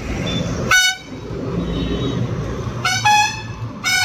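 Vehicle horn honking on a busy road: a short toot about a second in and a longer blast near the end, over a steady rumble of traffic.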